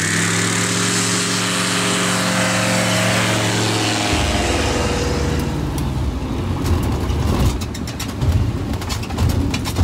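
Light aircraft engine running at takeoff power, its pitch rising as it comes up to speed and then falling slightly as it moves away. About four seconds in, this changes abruptly to a rough rumble with wind buffeting and sharp rattling clicks, as heard inside the open cockpit.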